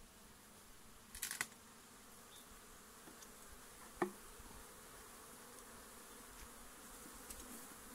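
Honeybees buzzing faintly and steadily around a smoked hive, with a short scraping crack about a second in as the wooden hive lid is pried loose, and a sharp knock about four seconds in.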